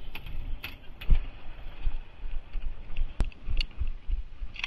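Handling noise on a handheld phone: irregular muffled thumps and scattered clicks, with one sharp click about three seconds in.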